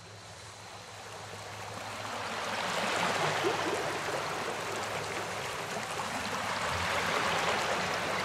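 A steady rushing noise like flowing water, fading in gradually over several seconds.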